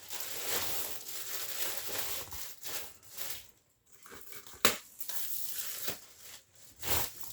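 Packing material being pulled off and crumpled by hand: rustling and crinkling in uneven spells, with one sharp knock a little past halfway.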